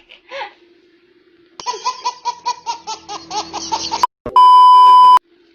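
Laughter, a quick run of pulses that starts and stops abruptly, then a steady high beep of about a second, like a censor bleep.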